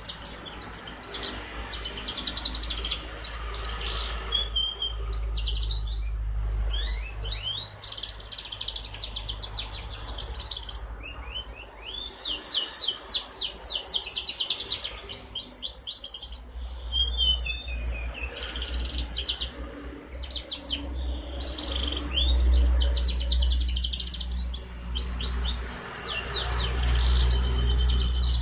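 Young domestic canary singing: fast trills and rolling phrases in short runs with brief pauses. A low rumble runs underneath and is strongest in the second half.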